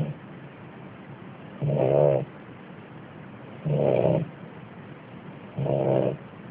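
A sleeping pet snoring: a regular snore about every two seconds, each lasting a little over half a second, with the tail of one snore at the start and three full snores after it.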